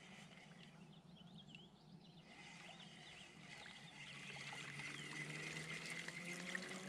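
Faint outdoor pond ambience with small birds chirping, and a spinning reel being cranked to retrieve a lure, its soft whir growing a little louder in the second half.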